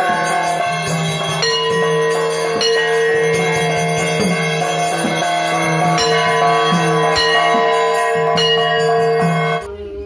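Hand-held bell-metal gongs (kansar) beaten repeatedly with sticks, their loud metallic ringing overlapping continuously, as played during a puja. The ringing cuts off suddenly near the end.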